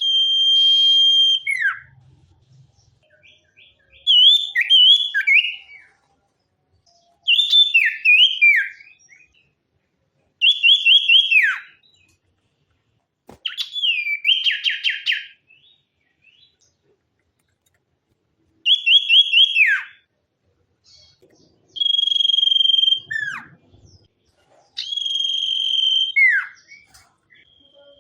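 A male sirtu songbird singing clear whistled phrases, one every two to three seconds. Each phrase mixes a held high whistle with rapid stuttered notes and often ends in a quick downward slur.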